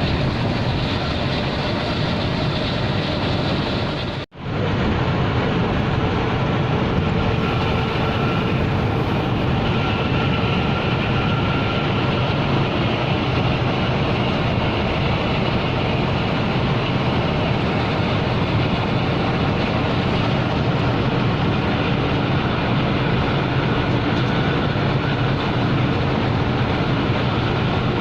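Intercity bus under way: steady engine drone and road noise, with a brief dropout in the sound about four seconds in.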